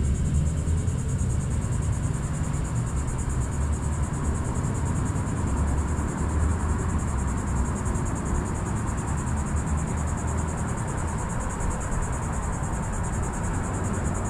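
A steady, high-pitched insect chorus trilling without a break, over an uneven low rumble.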